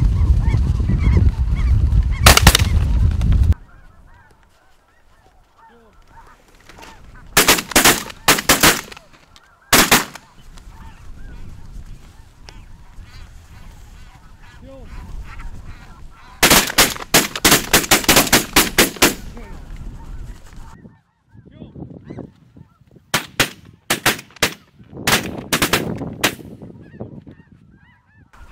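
Snow geese calling overhead, broken by three volleys of shotgun fire from several hunters: a few shots about eight seconds in, a long rapid string of shots around the middle, and another group near the end. Wind buffets the microphone with a loud low rumble for the first few seconds.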